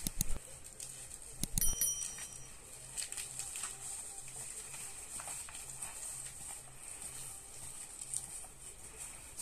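Dry sticks and branches cracking and rustling as firewood is gathered, with a few sharp snaps in the first two seconds. After that the bundle of brushwood rustles and scrapes while it is carried uphill, with footsteps on leaf litter.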